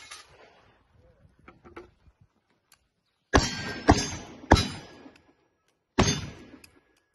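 Four gunshots from a cowboy action shooting stage: three in quick succession about half a second apart a little over three seconds in, then one more about six seconds in. Each shot is followed by a ringing, echoing decay, with a few faint clicks before the first shot.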